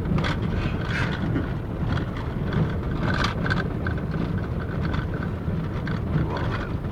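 Car driving along a road: a steady low rumble of engine and tyre noise, with a few short knocks.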